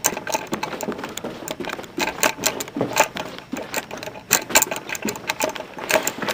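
Rapid, irregular clicks and knocks of handling noise from a handheld camcorder being jostled and swung around in a small tiled room.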